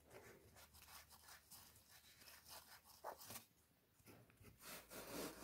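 Near silence, with a few faint scrapes and ticks from the oil pump thrust plug of a Peugeot XD diesel engine being turned by hand in its threads.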